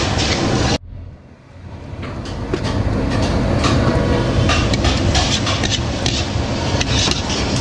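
Loud, steady rumbling noise with faint clicks. It drops out suddenly a little under a second in and builds back up over about a second and a half.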